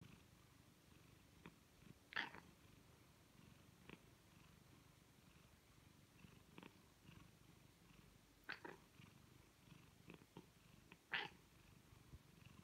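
Tabby cat purring steadily, broken every few seconds by short chattering calls, the strongest about two seconds in and again near the end. This is the chatter of a cat fixed on a bird it cannot reach.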